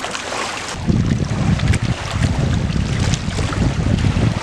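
Wind buffeting the microphone: a loud, irregular low rumble that starts about a second in, over a steady noisy hiss.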